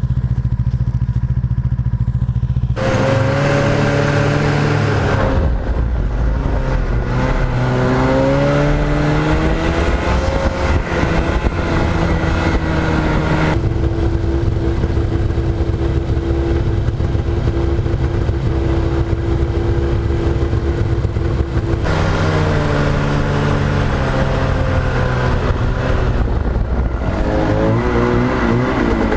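Snowmobile engine running under way over snow. Its pitch rises and falls with the throttle, holds steady for several seconds mid-way, then varies again.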